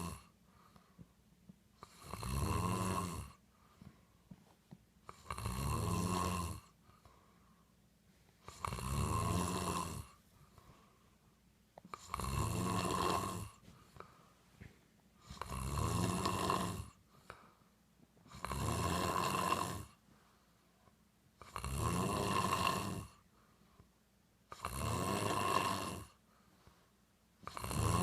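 A man snoring loudly in a steady, regular rhythm, one long snore about every three seconds with quiet breathing pauses between them.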